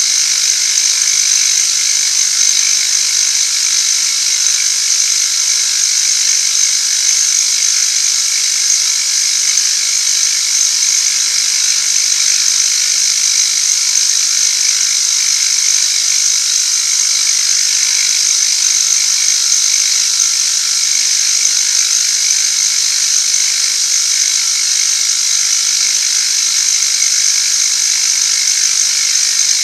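Machine tool running steadily while cutting metal, taking a cut to remove excess material from the side face of a workpiece.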